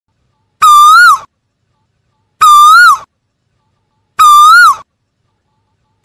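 Asian koel calling: three identical loud whistled notes, each well under a second long, repeated at an even pace about every two seconds. Each note holds steady, lifts a little, then drops sharply at the end.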